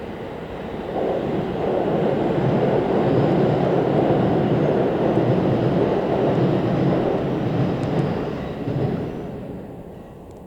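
Train hauled by a DE10 diesel locomotive passing by: a rumble that swells about a second in, stays loud for several seconds, then fades near the end.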